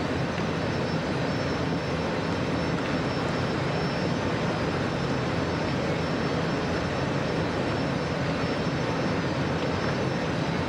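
Steady engine drone with a broad rushing noise over it, unchanging throughout.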